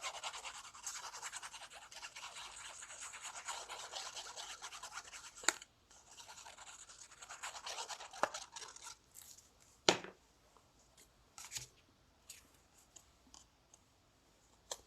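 Rapid, scratchy back-and-forth rubbing on paper or card in two spells, followed by a few sharp taps.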